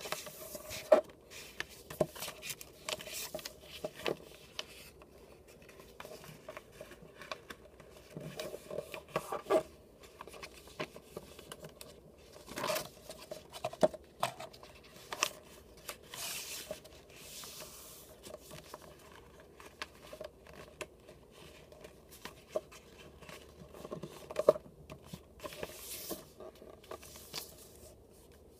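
A sheet of white paper being folded into a paper airplane by hand: irregular rustling and sliding as the paper moves, fingers scraping along the folds to crease them, with a few sharper clicks.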